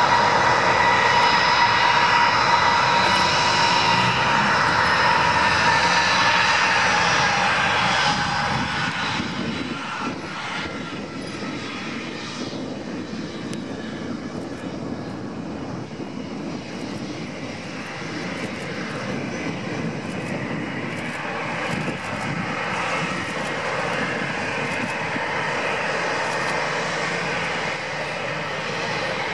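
Airbus A319CJ's twin IAE V2500 turbofan engines at taxi power: a steady jet whine that drifts slightly down in pitch and fades about eight seconds in. A duller rush of engine noise is left, growing louder again over the last ten seconds.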